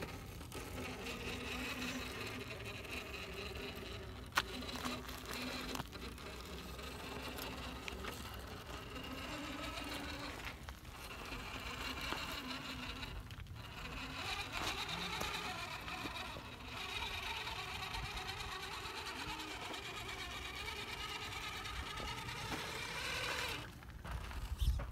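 Electric motor and gear train of a radio-controlled scale rock crawler whining as it crawls up rock, the pitch rising and falling with the throttle. A single sharp click about four seconds in.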